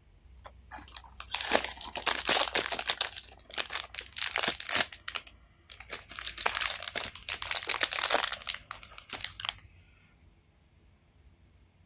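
Foil wrapper of a Pop Mart blind-box figure crinkling and tearing as it is opened by hand, in two bouts of dense crackling about four seconds each with a short break between.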